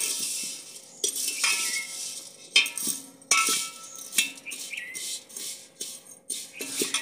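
Steel ladle stirring dry vermicelli as it roasts in a brass pot: irregular scrapes and clinks against the pot, each leaving the metal ringing, over the dry rustle of the strands.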